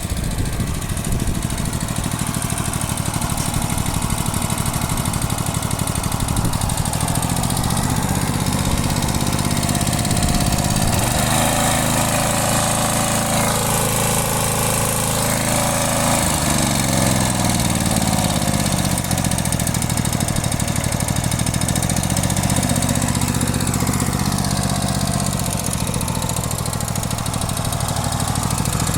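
Push lawn mower's Briggs & Stratton single-cylinder engine running steadily while cutting grass, its note sagging and recovering twice under the load of the grass, and running smoothly throughout.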